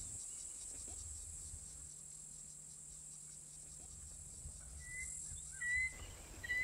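A steady, high-pitched insect chorus, with a few short whistled bird calls joining near the end.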